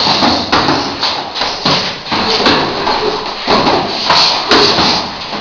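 Boxing gloves thudding irregularly into hanging heavy punching bags, mixed with shuffling footwork on the floor, several knocks a second.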